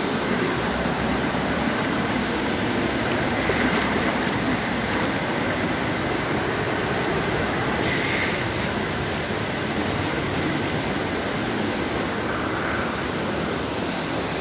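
Steady rush of flowing stream water, an even hiss that keeps the same level throughout.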